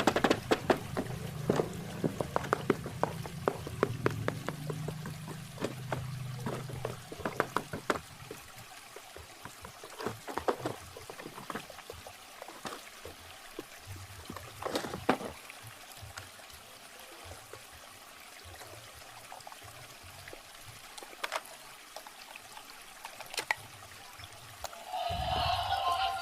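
Packaging being handled during unboxing: many small crackles, clicks and rustles, dense in the first several seconds and then scattered with quiet gaps. About a second before the end, music starts.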